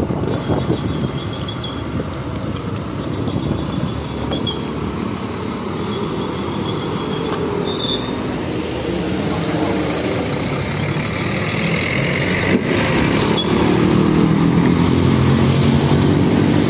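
Scania K360iB coach's five-cylinder diesel engine running as the bus moves past slowly, with road and tyre noise. In the last several seconds the engine note rises and gets louder as the bus pulls away under power.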